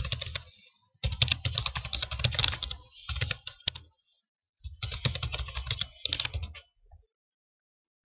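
Typing on a computer keyboard in quick runs of keystrokes, entering a username and then a password, stopping about seven seconds in.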